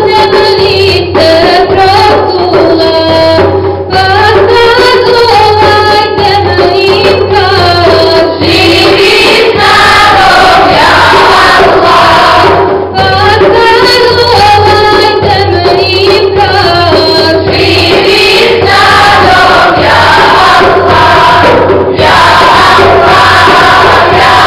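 Mixed choir of men's and women's voices singing a Bosnian Islamic devotional hymn (ilahija), with a steady low hum underneath.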